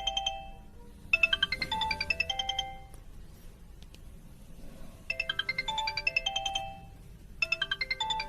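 A mobile-phone ringtone melody of quick, bright bell-like notes, played in short phrases with pauses of a second or two between them.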